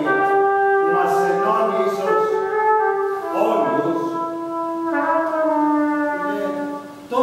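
Trumpet playing a slow phrase of long held notes, moving to a new pitch every second or two and fading away near the end.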